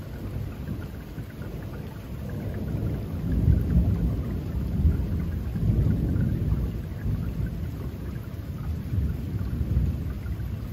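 Summer thunderstorm: steady rain patters through pine trees while a long roll of thunder builds about two seconds in. The thunder is loudest around four to six seconds, rumbles again near the end, then eases.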